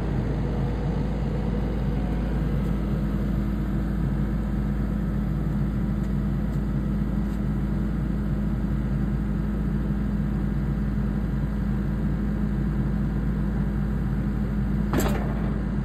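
Compact track loader's diesel engine running steadily at a constant speed, with one sharp click near the end.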